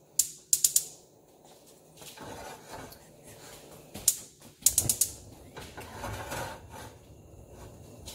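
Gas stove burner's spark igniter ticking in short runs of rapid clicks: one near the start, then more about four and five seconds in, while the burner is being lit.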